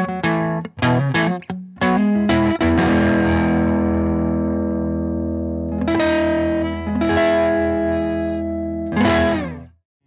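Electric Strat-style guitar with ID:Evolution Mk.II single-coil pickups played through an amp with some overdrive: quick picked notes, then full chords left to ring, with a last strum that cuts off abruptly near the end.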